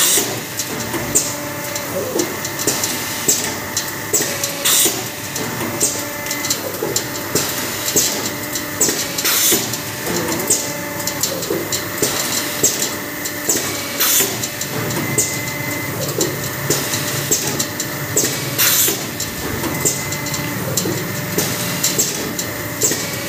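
Fully automatic hydraulic paper plate making machine running: a steady hum with frequent clicks and knocks as it presses paper plates, and a short sharp hiss about every four and a half seconds.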